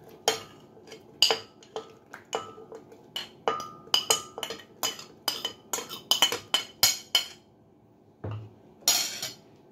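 A spoon clinking and tapping against a blender jar in a quick, irregular run of sharp strikes as fried chillies, shallots, garlic and tomato are spooned in. Near the end comes a dull thump and a short scrape.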